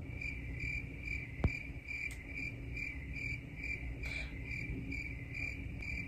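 Crickets chirping evenly, about two and a half chirps a second, starting and stopping abruptly at the edits like a comic 'crickets' sound effect. A single sharp tap sounds about a second and a half in.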